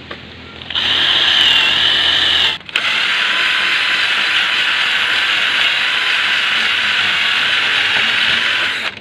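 Cordless drill boring a hole through a wooden speargun stock. It starts about a second in, stops for a moment near the three-second mark, then runs steadily until just before the end.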